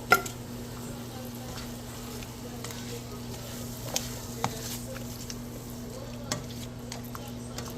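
Fish cooking in a pot on the stove, sizzling, while a spoon stirs and knocks against the pot a few times, the sharpest knock right at the start.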